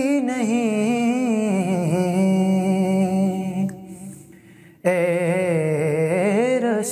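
A man singing a naat (Urdu devotional song) in a single voice with no instruments. A long, wavering held note fades away, and after a brief near-silent gap he comes back in at full voice with the next phrase, about five seconds in.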